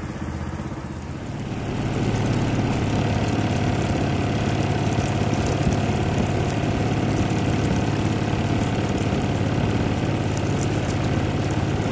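Small boat's engine running steadily, picking up about two seconds in as the boat gets under way, with water rushing along the hull.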